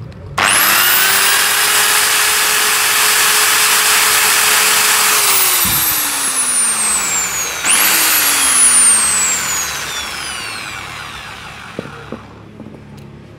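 Small electric rotary grinder with a wire brush bit, spinning up with a rising whine and running steadily for about five seconds, then winding down as it is switched off. It is started again about eight seconds in and coasts down slowly. It is being used to scrub dirt and deposits out of a motorcycle cylinder head port.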